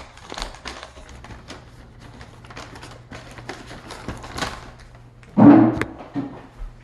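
Close-up chewing and mouth noises from eating a donut: soft clicks and smacks, with one louder short voiced sound, like a hum or throat noise, about five and a half seconds in.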